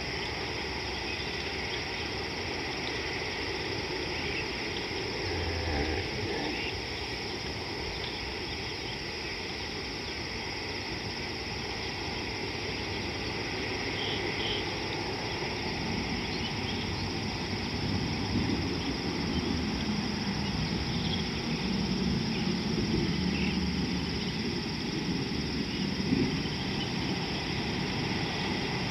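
Outdoor ambience: a steady high insect drone with a few faint bird chirps, and a low rumble that swells about two-thirds of the way through.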